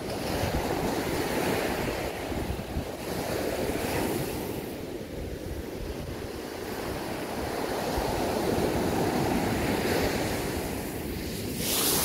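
Heavy surf breaking and washing up the sand, swelling and ebbing every few seconds, with wind on the microphone. Near the end a wave washes in close with a sharp hissing rush of foam.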